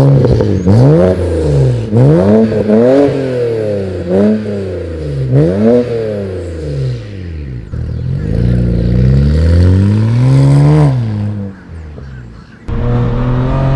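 BMW 335i's N54 twin-turbo straight-six revving up and down repeatedly through a new full aftermarket exhaust, which sounds much louder than stock. The revs climb and fall about six times in the first eight seconds, then one longer climb peaks and drops near eleven seconds before settling to a steadier note.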